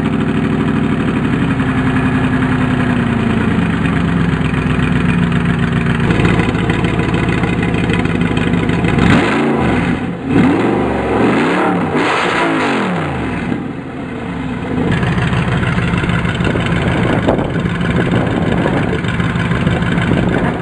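Audi R8's V8 engine heard at its twin exhaust tips, idling just after a start with the idle settling slightly. Then three or four quick revs rise and fall in a row before it drops back to a steady idle.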